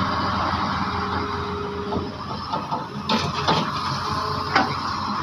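Heavy diesel machinery, an excavator or dump truck at a sand pit, running steadily, with a few sharp knocks in the second half.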